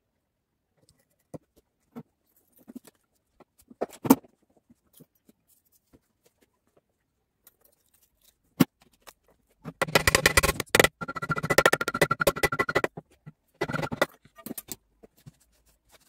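Small metal clicks and knocks as parts of an air-cooled engine cylinder are handled. About ten seconds in comes roughly three seconds of scraping and rubbing with a faint ringing note, and a shorter scrape follows near the end.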